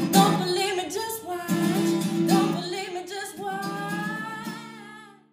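A woman singing a funk-pop song over a strummed acoustic guitar. The closing notes are held and fade out near the end.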